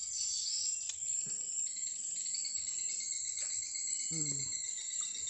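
A steady, high-pitched chorus of insects chirring in the vegetation, with a couple of faint clicks.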